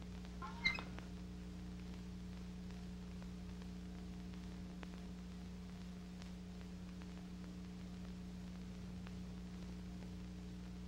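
Steady low electrical hum with hiss, the background of a VHS tape transfer, and one brief high-pitched sound effect about half a second in.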